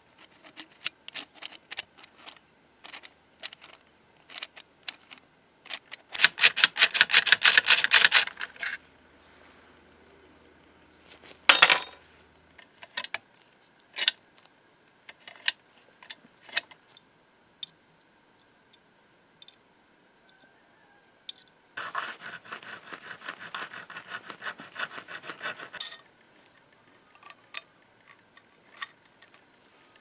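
Metal clicks of a key turning in an antique mortise lock, its levers and bolt snapping over, with one loud clack near the middle. Two bursts of rapid metal filing strokes, a few seconds each, come from the key's bit being filed down to fit the lock.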